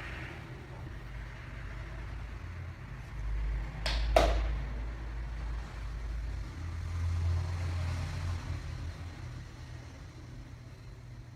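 Two quick sharp cracks close together, a joint popping during a chiropractic spinal adjustment, over low rumbling handling noise from hands and the treatment table.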